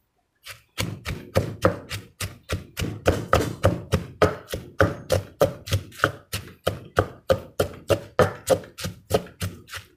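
Pestle pounding chilies and shallots in an earthenware mortar: even, steady thuds about three a second, starting just under a second in.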